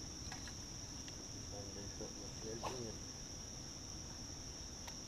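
A steady, high-pitched insect chorus from the wooded riverbank, with a few faint ticks and a brief low voice sound about two and a half seconds in.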